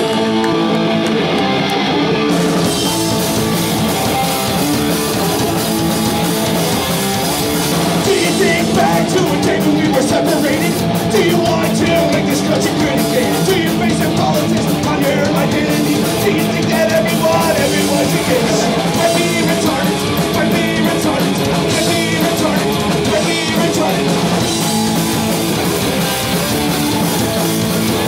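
Punk rock band playing live and loud: electric guitar, bass and drum kit, with singing.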